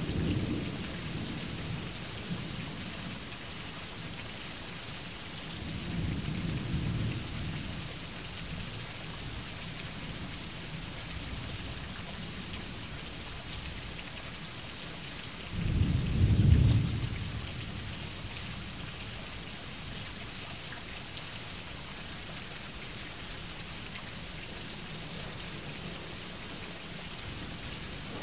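Thunderstorm: steady rain with rolling thunder. Low rumbles come near the start and again about six seconds in, and a louder thunderclap rumbles a little past halfway.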